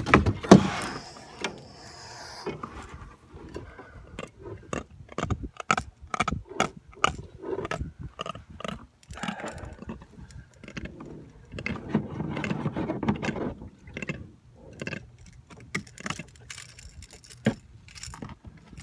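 Irregular clicks, knocks and scraping from handling a netted crevalle jack in the landing net, working to free the hook. There is a loud knock at the very start and a denser stretch of rustling and scraping about two thirds of the way through.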